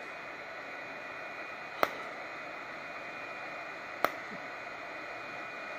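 Home IPL hair-removal handset firing automatically: two sharp clicks about two seconds apart, one for each light pulse, over a steady hiss with a faint whine underneath.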